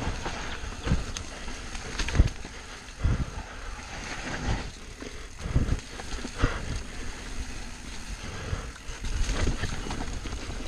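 Mountain bike riding down a rough dirt trail: tyres rolling over dirt and roots with the bike rattling, and several hard irregular knocks as it hits bumps, over a rumble of wind on the microphone.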